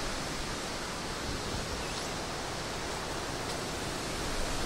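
Wind blowing across the microphone outdoors: a steady rushing hiss with an uneven rumbling low end.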